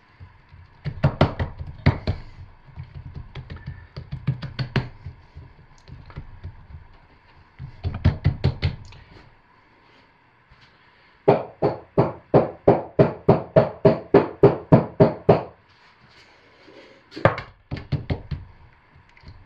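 Knocks and slaps of a loaf mold of thick hot process soap being patted and rapped to pack the soap down and drive out air pockets. Scattered strikes come first, then about halfway in a run of quick, even knocks, about four a second, lasting some four seconds.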